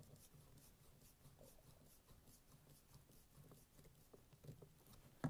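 Near silence, with faint scratchy clicks of a screwdriver turning the screws that hold a car door speaker in its mount; a slightly sharper click comes near the end.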